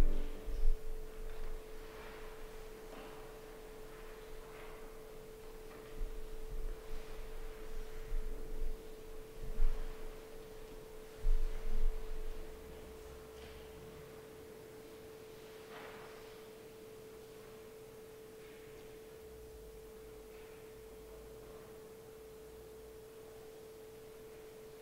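A steady, faint pure tone hums without a break, with a few soft knocks and bumps during the first half.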